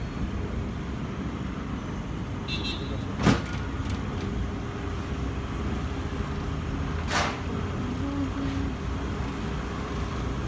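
Steady low background rumble with two sharp knocks, one about three seconds in and another about seven seconds in.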